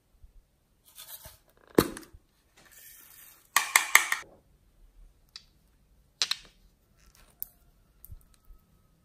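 Small plastic cases and containers being handled, clicking and snapping open and shut, with a soft rustling hiss. The loudest are a single click about two seconds in and a quick run of clicks and rattles around four seconds in.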